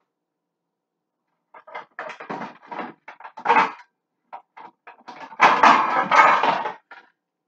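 Kitchen clatter: pans and utensils being handled and set down in a run of irregular knocks and rattles, loudest about two thirds of the way through.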